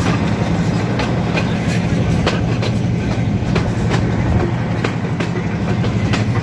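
Passenger train running along the track, heard from an open carriage door: a steady low rumble with irregular clicks and clatter of the wheels over rail joints.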